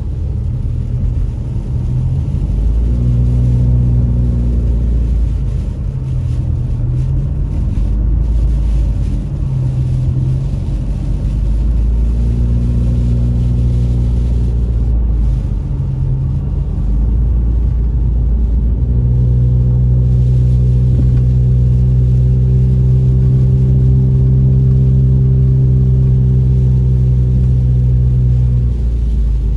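Car cabin drive noise: a steady low rumble of engine and tyres at cruising speed, with a deeper engine hum that swells in and out several times and holds for a long stretch in the second half.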